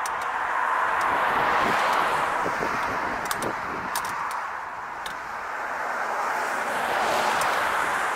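Road traffic: cars passing, their tyre noise swelling, fading about halfway through and swelling again. A few faint clicks sound in the middle.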